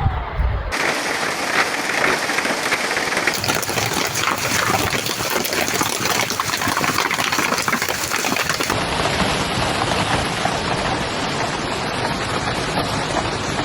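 Hail and heavy rain pelting down: a dense, steady clatter of countless small impacts. It changes abruptly twice, as one recording gives way to another. In the first second a siren's falling wail trails off.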